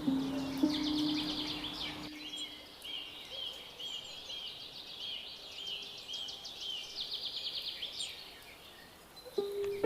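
Songbirds calling: bursts of rapid high trills, with a short rising-and-falling note repeated about twice a second. Low sustained background-music notes play for the first two seconds, stop abruptly, and come back near the end.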